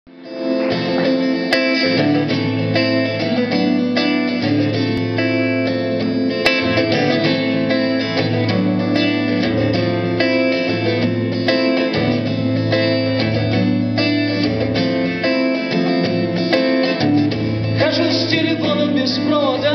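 Live song with a rhythmic strummed acoustic guitar intro. A man's singing voice comes in near the end.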